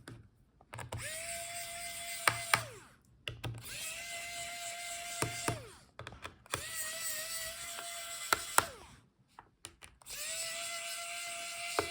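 Small electric screwdriver backing out the laptop's bottom-case screws: four short runs of a steady motor whine, each starting with a click and winding down in pitch as it stops.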